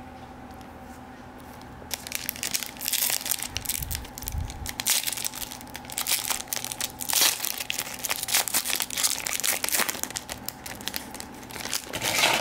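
Foil wrapper of a trading-card pack crinkling and tearing as it is opened and the cards are pulled out, starting about two seconds in and loudest near the end, with a soft low bump of handling about four seconds in.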